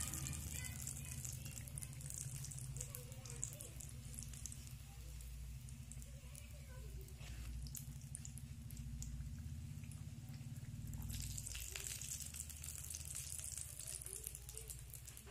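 Singdas (samosas) deep-frying in hot oil in an iron kadai, the oil sizzling with a steady hiss of fine crackles that grows louder again near the end, over a steady low hum.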